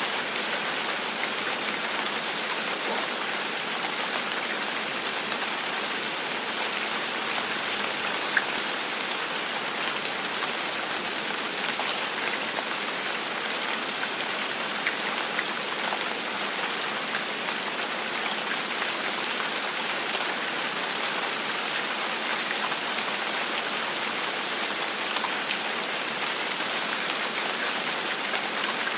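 Steady gentle rain falling on a surface, an even hiss with small individual drop ticks scattered through it.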